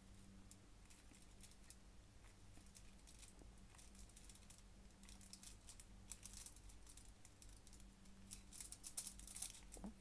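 Faint clicks and scrapes of a kitchen knife slicing through a peeled banana and against the aluminium foil beneath it, with the foil crinkling. The scraping grows busier in the second half, loudest about a second before the end.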